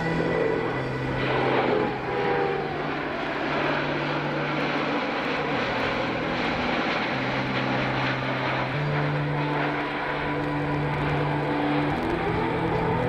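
Jet engine noise from the Boeing C-17 Globemaster III's four Pratt & Whitney F117 turbofans as it flies by, a steady noise with a falling pitch in the first two seconds. Music with a stepping bass line plays over the loudspeakers at the same time.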